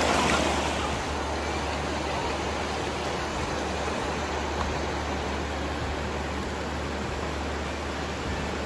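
River water rushing steadily over rocks, an even hiss-like roar that drops slightly in level about a second in.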